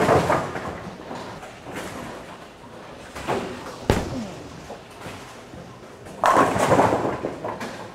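Bowling ball dropped onto the lane on release with a sharp thud about four seconds in, then rolling away. Louder clattering crashes of pins come near the start and about six seconds in.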